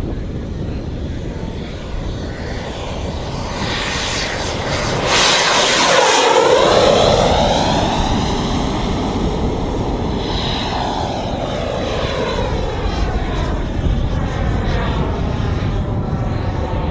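Turbine engine of a jet-fuelled RC scale jet on its takeoff run and climb-out. A high whine rises over the first few seconds and is loudest as the jet passes, about five to seven seconds in. A steady rush follows, easing off as it climbs away.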